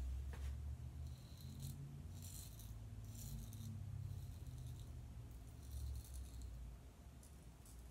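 Merkur Progress double-edge safety razor scraping through stubble on the neck: four short, faint rasping strokes, the last one about six seconds in, over a steady low hum.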